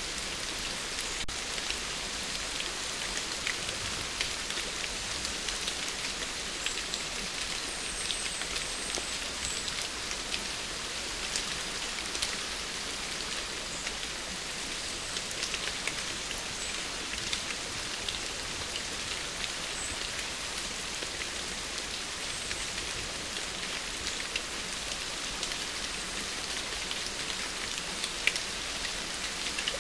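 A steady, even hiss sprinkled with many small scattered ticks, like rain on a surface, with one louder tick near the end.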